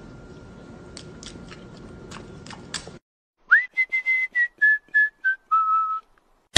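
A person whistling a short tune of several held notes that step down in pitch. It starts about halfway through, after a stretch of faint steady hum with a few soft clicks.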